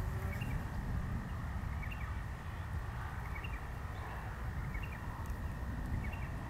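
Wind buffeting the microphone in the open, with short bird chirps every second or so and a faint steady high tone.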